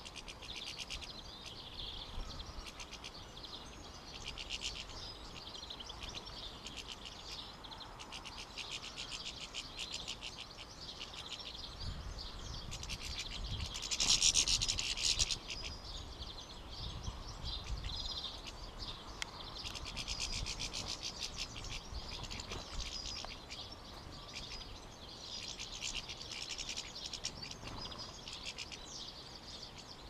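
European goldfinches twittering: a dense run of rapid high chirps that goes on without a break and swells louder for a moment about halfway through.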